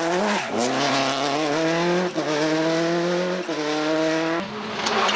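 Subaru Impreza rally car's turbocharged flat-four engine pulling hard under acceleration. Its note climbs, drops sharply at two upshifts about two and three and a half seconds in, then breaks off into a rush of noise a little after four seconds.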